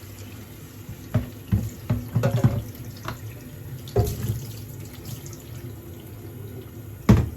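Tap water running and splashing through a tumble dryer's condenser cassette as it is rinsed in a sink to flush out lint and grime, with several sudden knocks and clatters as the cassette is handled, the loudest near the end.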